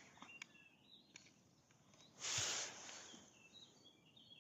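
Faint, quick chirps of small birds, a few near the start and a longer scatter in the second half, with a brief hiss of noise just past two seconds in.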